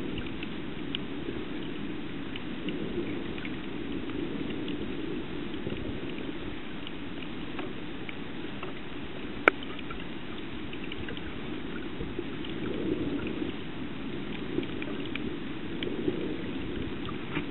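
Underwater sound in shallow reef water picked up by a submerged camera: a steady, muffled rush of moving water with scattered faint clicks and crackles, and one sharper click about halfway through.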